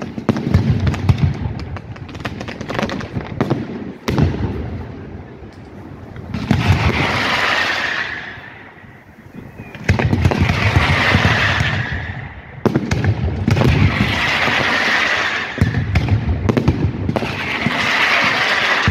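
Aerial fireworks display: a rapid run of shell bursts and bangs with low rumbling booms, broken every few seconds by about two-second stretches of loud crackling hiss.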